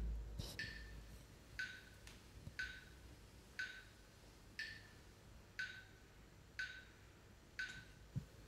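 A steady, sharp woody tick, exactly once a second, like a slow metronome, with a dull low thump right at the start.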